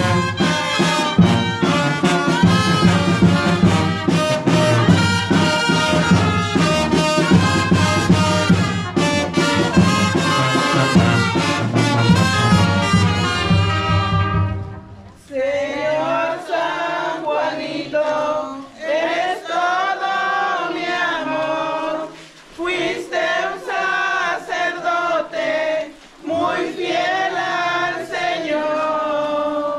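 Brass band music. For the first half a full band plays with a steady low beat; about halfway the low part and beat drop out and only the horns carry on with a slow melody in phrases with short breaks.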